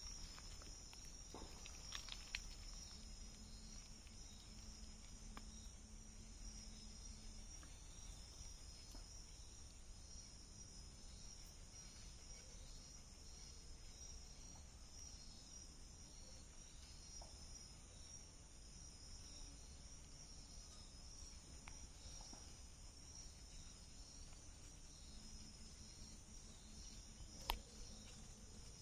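Faint, steady chorus of insects: a continuous high trill with a slight regular pulsing. A single sharp click comes near the end.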